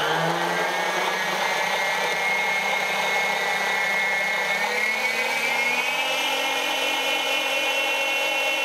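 Electric stand mixer motor running with a steady whine while it mixes brownie batter; the pitch rises a little about five seconds in.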